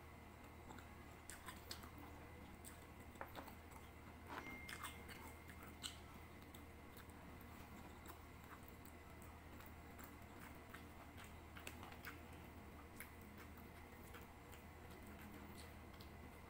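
Faint close-miked chewing of chicken adobo and rice, with small wet mouth clicks and smacks. They come thickly in the first six seconds or so, then only now and then.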